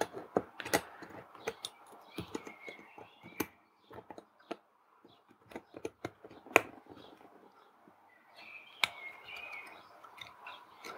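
Scattered light clicks and taps of a small circuit board being handled, its pin headers pressed into the header sockets of an Arduino Uno, with faint high chirps twice.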